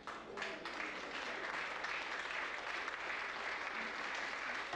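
Hall audience applauding, starting abruptly and holding steady.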